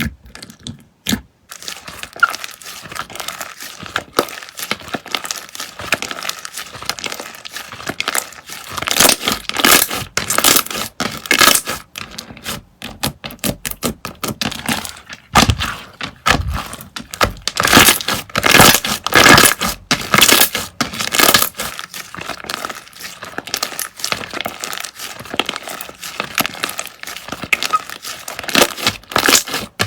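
Slime being squished and stretched by hand, a dense, irregular run of crackling and tearing pops that starts about a second and a half in.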